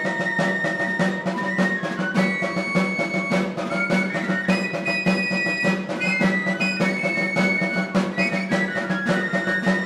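Basque txistu music: a high pipe melody moving in steps over a steady drum beat.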